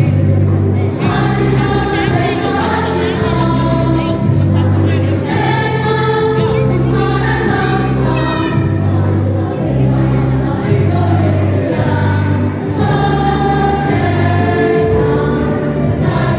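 Elementary-school children's choir singing, over low held bass notes that change about once a second.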